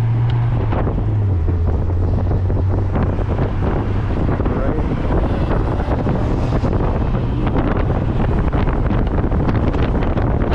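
Wind buffeting the microphone in the open cockpit of a 2019 Mazda Miata MX-5 at track speed, over the steady drone of its four-cylinder engine. The engine note is strongest in the first second or so, then sinks under the wind noise.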